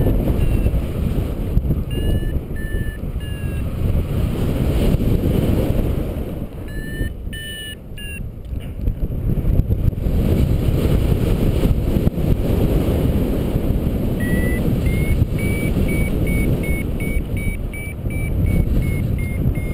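Wind rushing over the microphone in flight, with a paragliding variometer beeping: two short runs of beeps early on and in the middle, then steady beeping from about 14 seconds in that rises in pitch, the vario's signal that the glider is climbing in lift.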